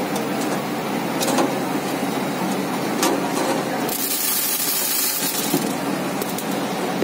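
Steady running noise of dal-processing machinery, with a few light clicks and a loud high hiss lasting about a second and a half, starting about four seconds in.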